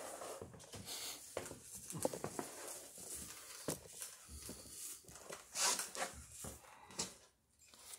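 Stiff sailcloth rustling and crinkling as it is handled and creased into a fold by hand, with scattered knocks and taps, going quiet briefly near the end.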